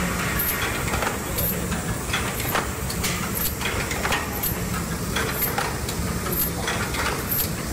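Transparent-film soap wrapping machine running: a steady mechanical hum with short clicks and brief hisses repeating about once a second.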